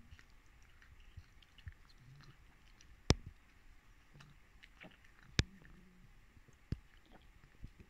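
A cat eating hungrily and fast, with soft chewing and a few sharp clicks, the loudest about three and five and a half seconds in.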